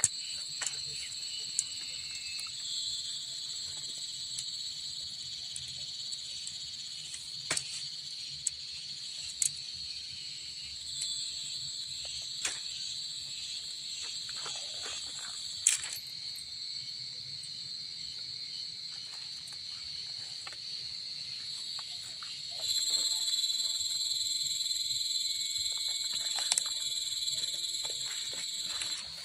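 A steady, high-pitched insect chorus trilling without a break, which grows louder about two-thirds of the way through. Scattered light clicks and knocks sound over it.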